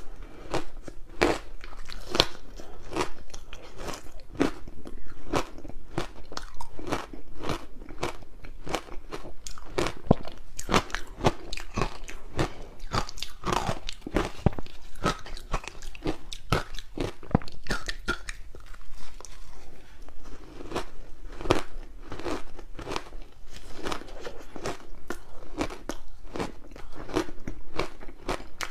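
Close-miked biting and chewing of soft, sticky green barley ice balls: a dense run of crisp crunches, several a second, with a brief lull about two-thirds of the way through.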